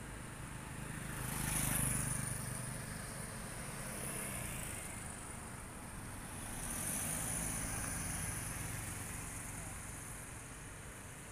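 Street ambience with passing road traffic: a vehicle swells past about two seconds in and another from about seven to nine seconds, over a steady high-pitched hiss.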